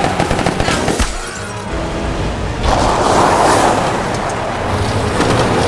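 Film battle soundtrack: repeated gunfire, automatic bursts and single shots, over a dramatic music score, with a louder, denser stretch of noise about three seconds in.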